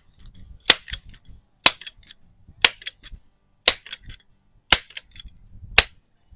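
Six sharp clacks about a second apart, each followed by a fainter click: a Rochester Precision multi-pump air rifle being pumped up, stroke after stroke, to charge it before a shot.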